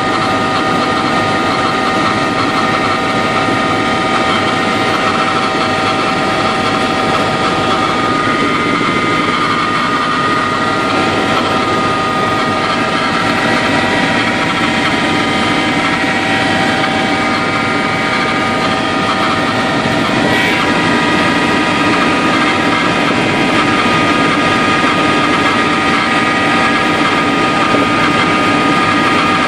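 Helicopter in flight, heard from inside the cabin: a steady, loud noise of engine and rotors with a constant high whine over it.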